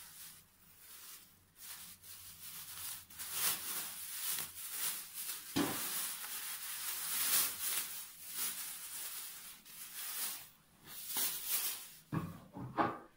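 Thin plastic bag being untied and pulled open by hand, crinkling and rustling in irregular stretches. A few soft knocks near the end.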